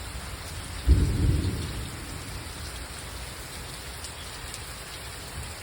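Steady heavy rain hissing down, with a sudden low crack of thunder about a second in that rumbles away over about a second.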